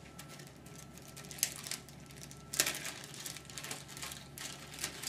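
Small plastic parts bag crinkling as it is opened and handled, with a few louder rustles about a second and a half in, at the middle, and near the end, as the replacement trolley wheels and screws inside are tipped out into a hand.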